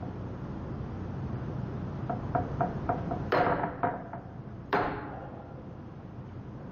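Click-type torque wrench set at 70 ft-lb being pulled through a hanging scale: a few light ticks, then two sharp metallic clicks about a second and a half apart as the wrench breaks at its setting.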